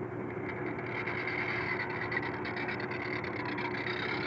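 A vehicle engine sound effect from the cartoon's soundtrack, steady with a low hum, heard through a portable DVD player's small speaker.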